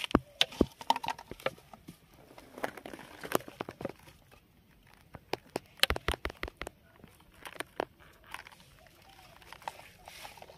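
Plastic crinkling and scattered sharp clicks and taps from handling a clear plastic container of powder over a steel plate of cooked rice, while fishing bait is being mixed. There is a quieter lull in the middle.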